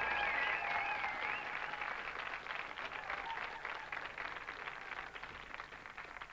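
Studio audience applauding, slowly dying away. A melodic tune from the music before it runs out in the first second or so.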